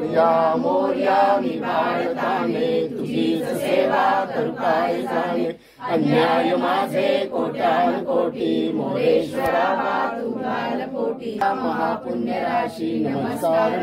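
A group of voices chanting an aarti together, a devotional hymn sung while the lamp plate is waved before the goddess, with one short break about six seconds in.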